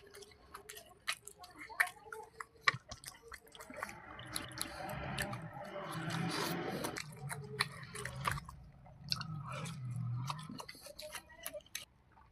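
Close-up chewing of food, with many short wet clicks and smacks and a denser run of chewing about a third of the way in and again later.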